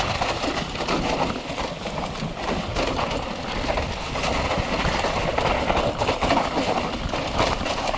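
Mountain bike rolling down a rough dirt trail: tyres crunching over dirt and dry leaves, with a continuous clatter of the bike rattling over bumps.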